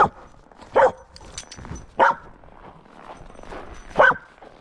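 A dog barking: four short, loud barks spaced about a second or two apart.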